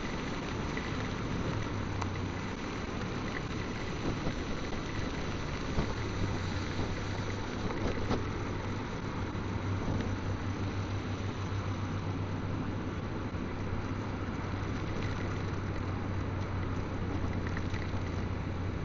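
A motorcycle running steadily at riding speed, a constant low engine drone under the hiss of rain and wet road.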